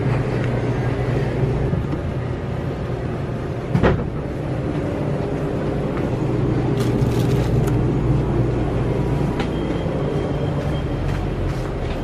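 Steady low machine hum, typical of a shop's open refrigerated display cases, with a sharp knock about four seconds in and a few light clicks of handled plastic bottles.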